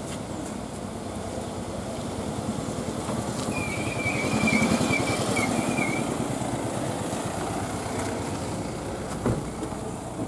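Honda Amaze sedan driving past at low speed, its engine and tyre noise swelling as it comes close, loudest about halfway through, then fading as it moves away.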